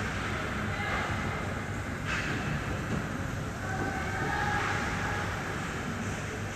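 Steady ice hockey rink background noise with a low rumble, a few faint brief high tones and one sharp click about two seconds in.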